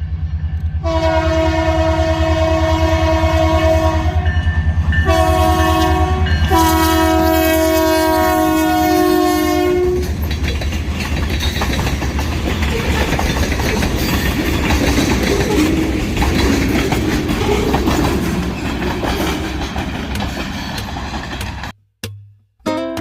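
Diesel freight locomotive sounding its multi-note horn in three blasts, a long, a shorter and a long, over the low rumble of its engine and the clickety-clack of wheels on rail joints. After the horn, the train keeps rolling past with rail and wheel noise. It stops suddenly near the end, and music comes in.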